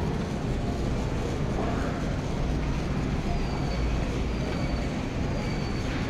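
Shopping cart wheels rolling over a store floor, a steady rumble, with store background noise. From about halfway through, a faint high chirp repeats about once a second.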